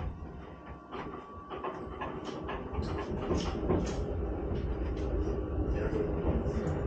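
Electric railcar running on the track, heard from inside the driver's cab: a low rumble that builds from about a second and a half in, with scattered clicks and knocks.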